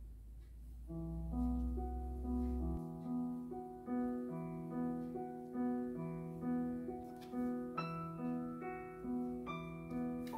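Background piano music: a gentle, evenly repeating pattern of notes that starts about a second in.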